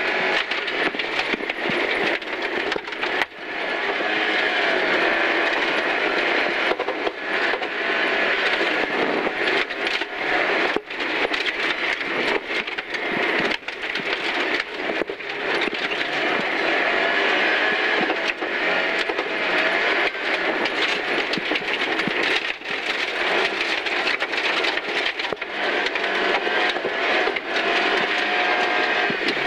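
Inside a Volvo rally car on a gravel stage: the engine running hard, its pitch rising and falling, with brief dips for lifts and gear changes, over a steady din of gravel and road noise through the shell.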